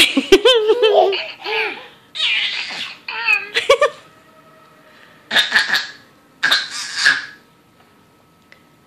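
High-pitched giggling and laughter in bursts: a long warbling giggle at the start, a shorter one a little after, then two breathy laughs.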